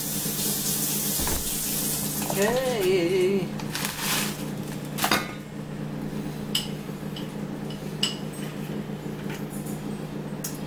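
Kitchen clatter of dishes and utensils being handled: a rushing hiss for about the first two seconds, then a few sharp clinks and knocks, over a steady low hum.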